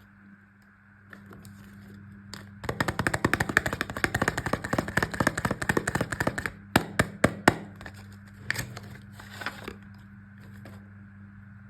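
Soap packaging being opened by hand: a dense crinkling crackle for about four seconds, then a handful of sharp separate crackles and a shorter burst of crinkling near the end.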